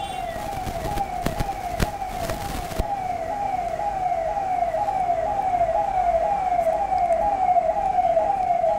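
An electronic siren-like alarm repeating a short falling tone about twice a second, steady throughout. A few sharp knocks sound in the first three seconds.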